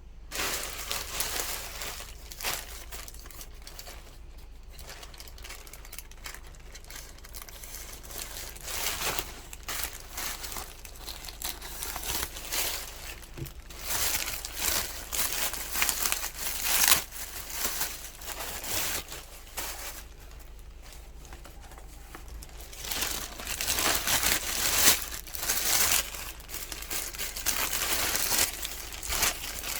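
Irregular crinkling and rustling of something being handled close by, in uneven bursts, over a steady low hum.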